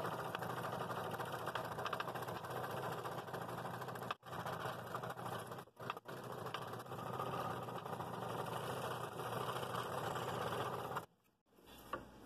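Scroll saw running with a No. 7 blade, cutting slowly through a thick hardwood blank, mainly walnut at this section. The steady running sound breaks off twice very briefly and stops about eleven seconds in.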